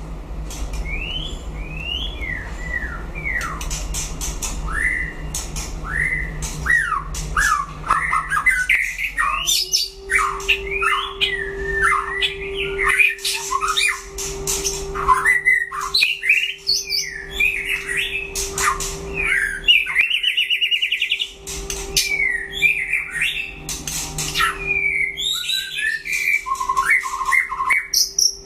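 White-rumped shama singing a fast, varied fighting song of rising and falling whistles mixed with sharp clicking notes. A steady low hum comes in about a third of the way through and holds.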